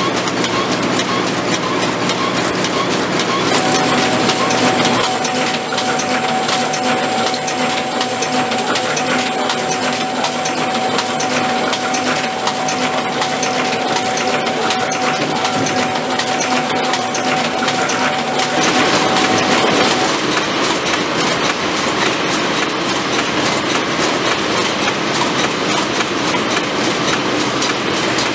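Fully mechanical butter portion filling, forming and wrapping machine running at production speed: a loud, continuous, dense clatter of its mechanism folding and wrapping the packets. A thin steady tone sounds through much of the middle, and the clatter's character shifts a few times.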